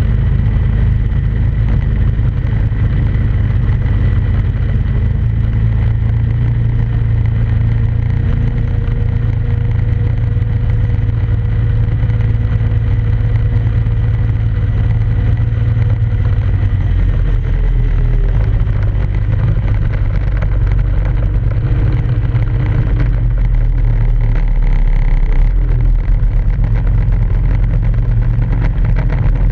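ATV engine running steadily under way on a trail ride, its pitch dropping from about sixteen seconds in before it settles into a new steady note.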